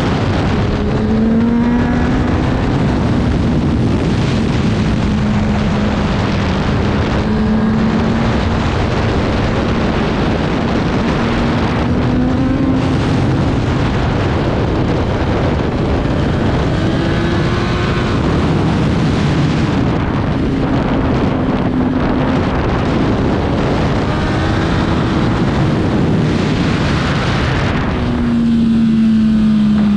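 Superbike engine running at high revs under racing load, its pitch climbing and dropping again and again through gear changes and corners, over heavy rushing wind noise on the microphone.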